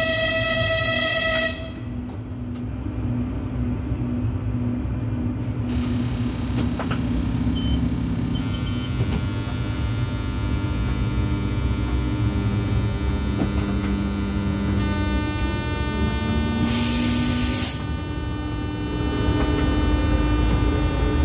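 A train horn is held at the start and cuts off about a second and a half in. The train then runs on with a steady low rumble and a wavering motor hum. A whine with many overtones sets in about eight seconds in, and a short hiss comes about seventeen seconds in.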